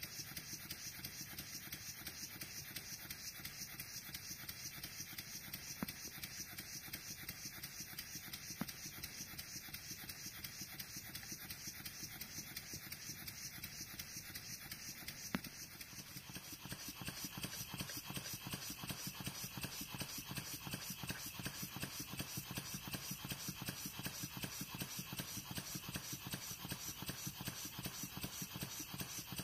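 Scratch-built four-column vertical model steam engine, single-cylinder with a slide valve, running on compressed air: a fast, even beat of exhaust puffs, a little louder from about halfway.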